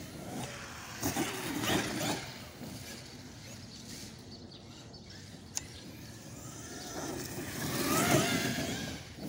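Traxxas X-Maxx 8S electric RC monster truck driving over grass, its brushless motor whining up and down in pitch as it speeds up. It comes on twice, briefly about a second in and louder toward the end as the truck passes close.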